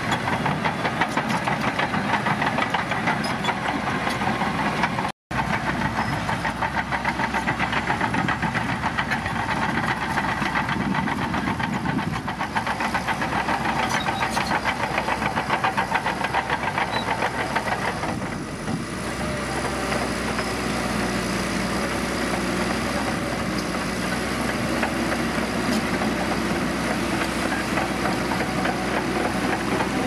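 Shantui DH17 crawler bulldozer's diesel engine working under load, with a fast, dense clatter from its steel tracks as it pushes soil. The sound cuts out completely for an instant about five seconds in, and it becomes smoother and steadier about two-thirds of the way through.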